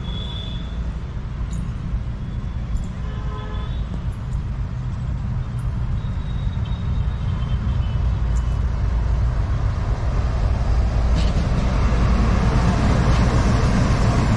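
Diesel locomotive engine rumble, heavy and steady, building louder as the locomotive approaches. A short horn blast sounds about four seconds in.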